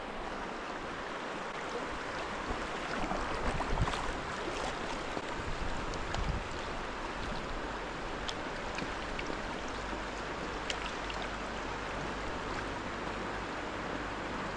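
Steady rush of river water flowing, with a few faint ticks now and then.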